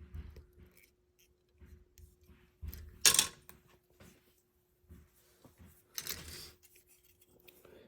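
Plastic model-kit parts being handled: light clicks and taps, with two short rustles, the louder about three seconds in and another about six seconds in.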